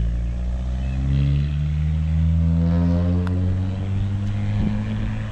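A low engine hum runs steadily throughout. About three seconds in, a putter strikes a golf ball once with a light click.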